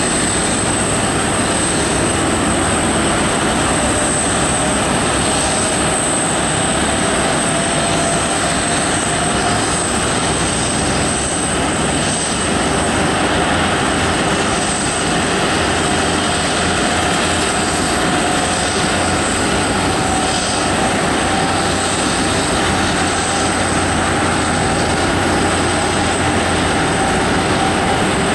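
Steady jet whine and rumble of an Airbus A330-200 airliner during pushback by a tug, with a thin high whine throughout and a tone that slowly rises in pitch.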